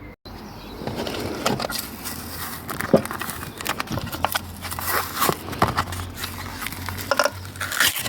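A glass scraper working the old glued pad off the sander's metal disc: irregular scraping strokes and clicks over a faint steady hum.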